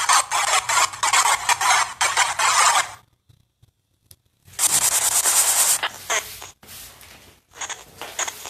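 Loud hissing, crackling noise, chopped and uneven. It cuts out abruptly about three seconds in, returns a second and a half later, then breaks into shorter scraps near the end.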